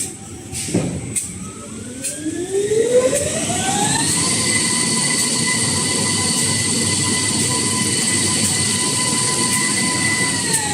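High-speed kitchen-towel rewinding machine spinning up: a few clicks, then a whine that rises in pitch for about a second and a half and holds steady at running speed. It begins to fall in pitch as the machine slows down near the end.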